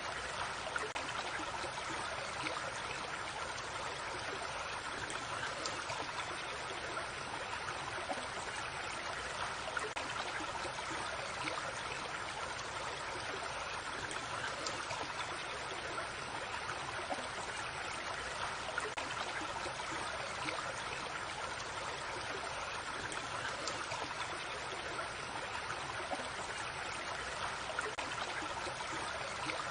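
A small creek running steadily over stones, a continuous babble of trickling water with many small splashes.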